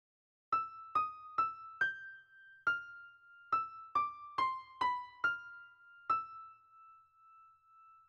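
A short melody of eleven single high notes on a keyboard instrument, each struck and fading away, the last one held ringing for about two seconds.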